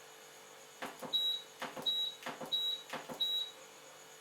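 Esatto front-loading washing machine's control panel being operated: four clicks of the controls, each answered by a short high beep, about two-thirds of a second apart, as the wash programme is stepped through.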